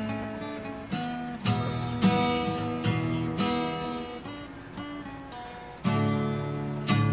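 Background music: acoustic guitar strumming chords, with a few harder strums standing out.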